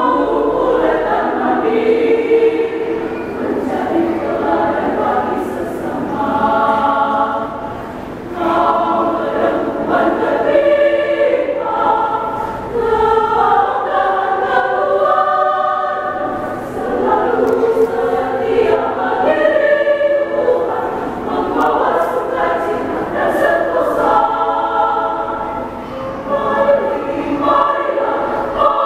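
Women's choir singing a march in harmony, phrase after phrase with short pauses for breath.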